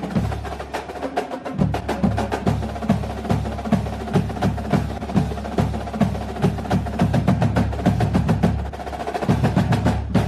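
Loud, percussion-heavy dance music with a steady driving beat about twice a second and fast clicking percussion over it. The beat drops out briefly near the end, then comes back.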